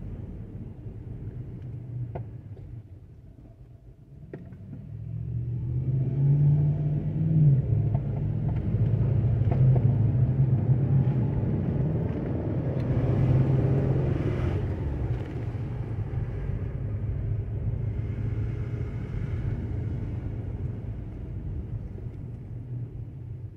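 Car engine and road noise heard from the moving car: a low steady hum that is quieter for the first few seconds while stopped, then swells about five seconds in as the car pulls away and stays loud as it drives on.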